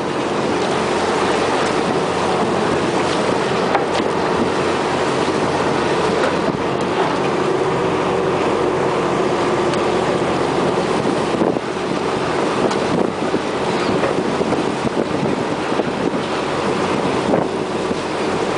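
A fishing boat's engine running steadily under way, with a constant drone over wind and water noise.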